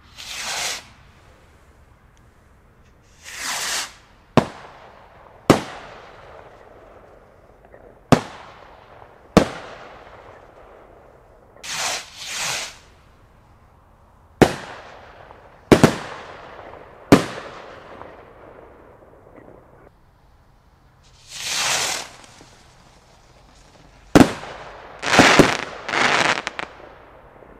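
Funke Super Gemini double-bang skyrockets fired one after another: each launch is a short whooshing hiss, and the bursts come as sharp bangs, mostly in pairs about a second apart, as each rocket bangs twice. Each bang leaves a short echoing tail.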